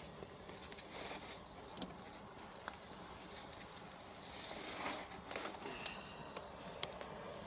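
Small wood fire crackling: scattered sharp pops over a steady rushing background.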